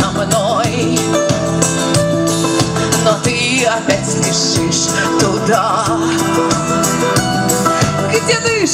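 Live pop band playing on stage, with a woman singing into a microphone with vibrato over electric guitar, keyboards and a steady beat.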